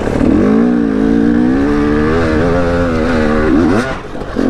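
Two-stroke enduro dirt bike engine revving: it climbs in the first second, holds a fairly steady high rev with small wavers under throttle, drops sharply about three and a half seconds in, then picks up again near the end.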